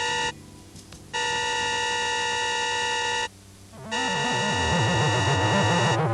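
Electronic alarm buzzer: a loud, steady, harsh tone that cuts out twice for under a second. From about four seconds in, lower wavering electronic tones warble over it.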